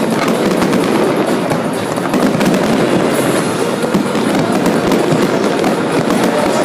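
Fireworks display going off: a dense, continuous crackling and popping of many bursts at once, with no single bang standing out.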